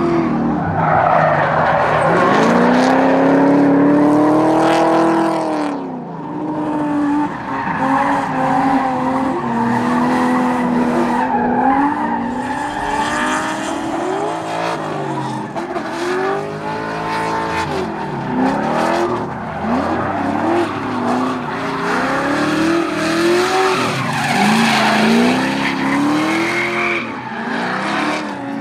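Drift cars sliding on track: engines revving, with the pitch rising and falling again and again, over continuous tyre squeal.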